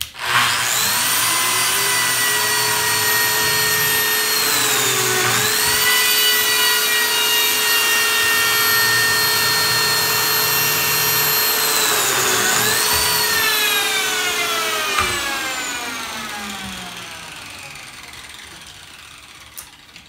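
Lamello Zeta P2 slot cutter starting up with a rising whine and running steadily. Its pitch dips and recovers twice, about five and twelve seconds in, as it plunges to cut connector slots into thick mitered stock. It is switched off about fifteen seconds in and slowly winds down.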